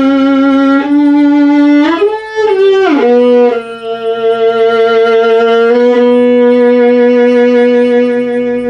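Solo violin bowed: long held low notes, a quicker run of notes about two seconds in, then one long sustained low note.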